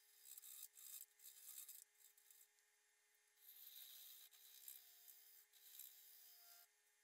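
Turning tool cutting a spinning end-grain cherry blank on a lathe, a faint hissing scrape of wood being sheared. It comes as short strokes in the first two seconds or so, then a steadier cut from about three and a half seconds until near the end, over a faint steady tone.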